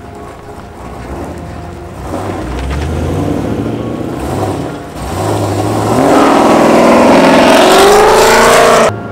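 Sports-car engines pulling out and accelerating, first a low engine note that rises and falls. Then, from about six seconds in, one engine gets much louder as it accelerates hard, its note climbing in pitch, until the sound cuts off abruptly near the end.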